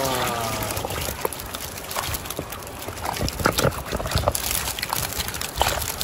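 Fast creek water rushing and splashing around a landing net dipped in the current, with irregular wet knocks and slaps as fish flap in the net over the basket. A brief wavering voice-like cry sounds right at the start.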